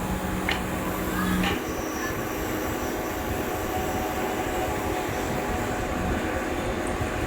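Workshop machinery running steadily, a continuous mechanical rumble with a steady hum that cuts off about a second and a half in.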